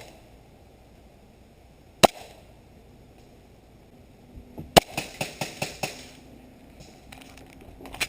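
Airsoft pistol shots: two sharp single pops about three seconds apart, then a quick string of quieter pops and one more near the end.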